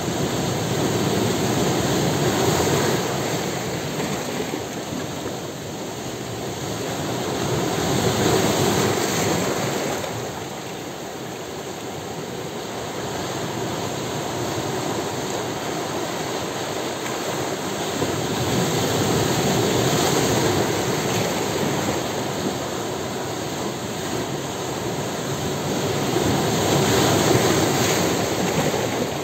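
Sea waves breaking and washing over shoreline rocks: a continuous rush of surf that swells and ebbs, surging four times as sets of waves come in.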